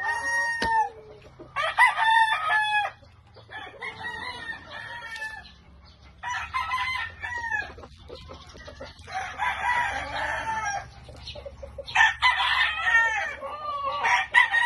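Several gamefowl roosters in breeding pens crowing over and over, a call about every two seconds, some calls overlapping.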